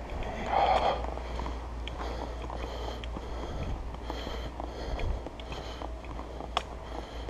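A hiker breathing hard, in and out about once a second, with footsteps on a dirt trail and a steady low rumble from the body-worn camera.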